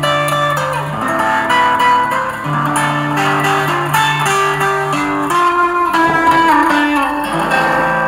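Guitar-led music played from a phone through a homemade amplifier built from an old Sony TV's speaker amplifier board, coming out of the TV's two small speakers as a test of the finished circuit. The music plays loudly and steadily.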